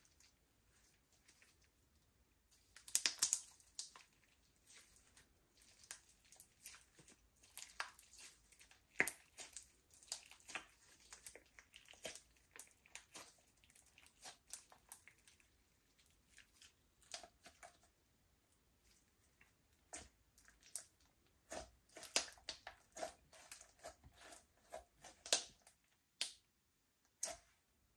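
Hands kneading and stretching slime, giving irregular sticky clicks, crackles and squelchy pops. There is a dense cluster about three seconds in and another stretch of busy handling past twenty seconds.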